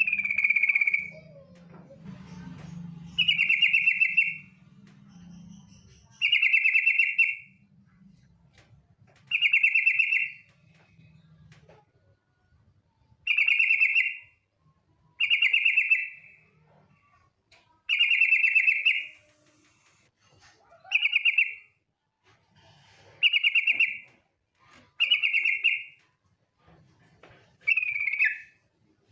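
Yellow-vented bulbul (trucukan) giving a short call phrase over and over, about one call every two seconds. It is a female's call, used as a lure to set males singing.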